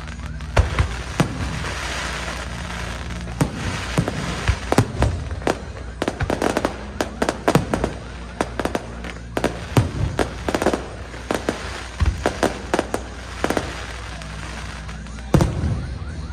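Aerial fireworks show: many sharp bangs from bursting shells in quick, irregular succession over a steady crackling hiss, with a short lull before one big bang near the end.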